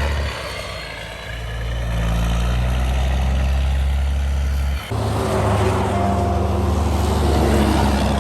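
Combine harvester engines running steadily, with an abrupt cut about five seconds in to a different machine's engine sound.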